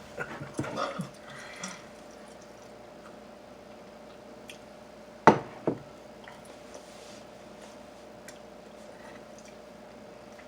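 Two sharp clinks of tableware about five seconds in, half a second apart, with a few soft taps, over a steady faint hum in a quiet kitchen.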